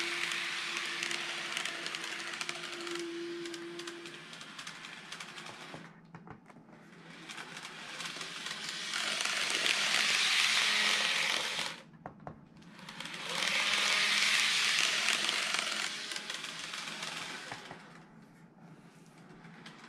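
KATO N gauge KiHa 25 series model railcar running on the layout track: the whirring rattle of its motor and wheels on the rails, with a steady hum at first. It swells as the train passes close by and fades as it runs off. It is loudest twice in the middle, with a sudden brief drop between.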